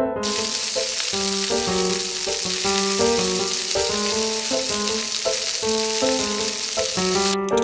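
Frying sizzle sound effect, a steady hiss that cuts off suddenly near the end, laid over light keyboard background music.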